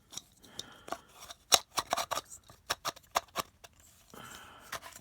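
Small hand tools and a plastic screwdriver bit kit being handled and put away: an irregular run of sharp clicks and clatters, with brief scraping and rubbing near the start and again about four seconds in.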